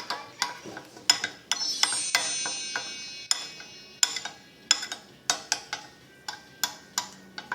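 Small spoon knocking against a little pot while a mixture is stirred: sharp irregular clinks about two a second, with one strike about one and a half seconds in ringing on for nearly two seconds.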